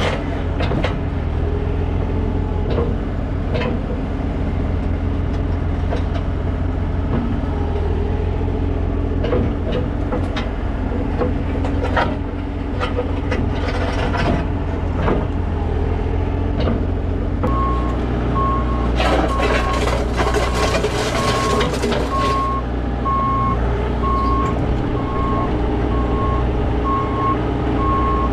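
Bobcat E40 compact excavator's diesel engine running under load, with scattered clanks and knocks of digging work. About two-thirds of the way in, the engine note changes and a travel/backup alarm starts beeping steadily, roughly one to two beeps a second, with a brief hiss soon after.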